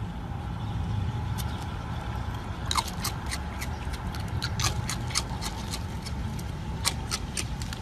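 A raccoon taking and eating crunchy ring-shaped cereal from a hand. Sharp, irregular crunching clicks begin about three seconds in, with a short squeak at the first one, over a steady low rumble.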